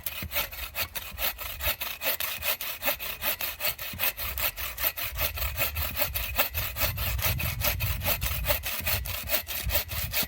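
Hand saw cutting through wood in quick, steady back-and-forth strokes, about four a second.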